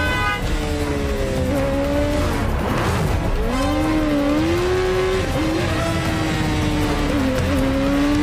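Sport motorcycle engines revving hard at a high pitch. The pitch keeps rising and falling as the bikes accelerate, shift and slow for curves.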